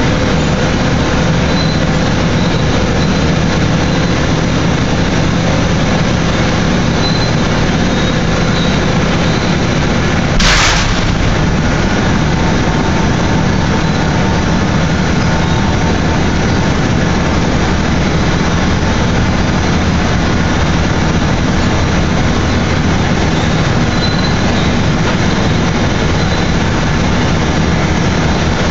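Heavy industrial machinery running with a loud, steady rumble, with a single sharp knock about ten seconds in.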